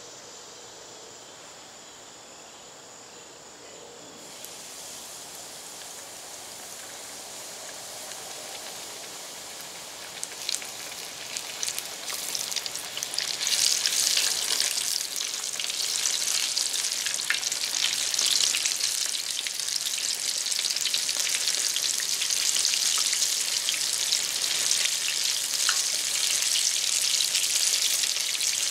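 Breaded flounder fillets deep-frying in hot oil in a cast iron skillet. The sizzle starts quietly with a few scattered crackles, then turns into a loud, dense crackling sizzle about halfway through as the fish goes into the oil.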